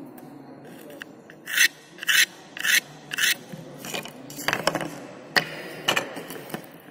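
Four quick, loud scraping strokes on plywood about half a second apart, then a run of clicks and scrapes as small plywood pieces are shifted and set down on a wooden bench.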